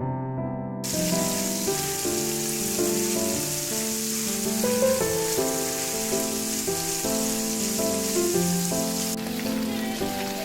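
Piano background music, joined suddenly about a second in by a steady hiss, which thins near the end.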